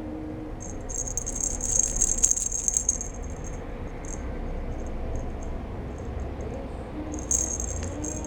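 A cat teaser toy being shaken, its bell or rattle jingling in bursts: a long spell of shaking about a second in, a few short shakes, then another burst near the end.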